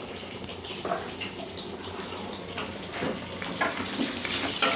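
Potato chunks frying in hot oil in a kadai, a steady sizzle, with a few light clicks and scrapes of a spoon near the end as turmeric is stirred through.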